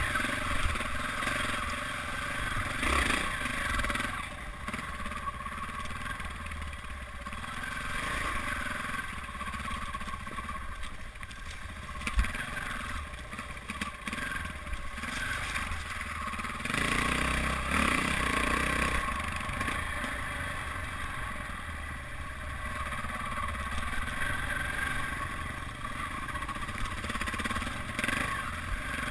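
Dirt bike engine running and revving up and down as it is ridden over rocky singletrack, with a sharp knock about twelve seconds in.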